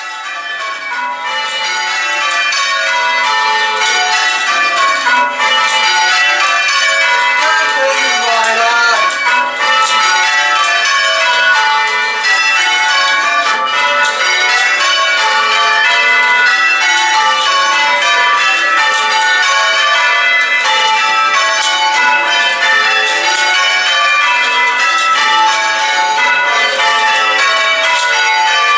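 Church bells being change-rung: a ring of tower bells struck one after another in quick, continuous rounds of changes, each stroke ringing on into the next. The ringing fades in over the first couple of seconds.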